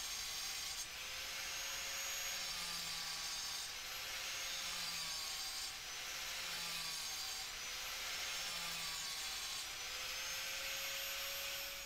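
Electric disc cutter (angle grinder) with a masonry blade running and cutting slots into a clay brick, a steady grinding whine whose pitch sags and recovers about every two seconds as the disc bites into the brick and is eased off.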